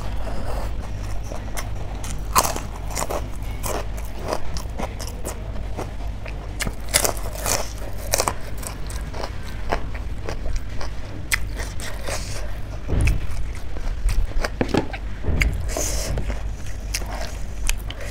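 Close-up eating sounds: irregular biting, wet chewing and crunching of a meal eaten by mouth, over a steady low hum.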